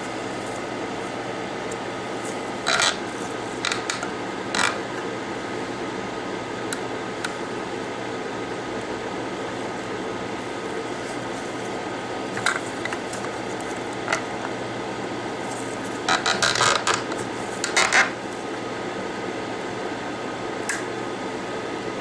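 Metal alligator clips on a helping-hands holder clicking and clattering as they are opened and clamped onto a phone logic board: a few clicks in the first five seconds, one about halfway through, and a longer clatter of handling about two-thirds through, over a steady machine hum.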